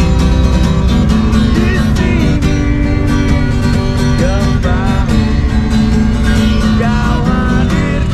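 A man singing to a strummed acoustic guitar, his voice sliding between notes.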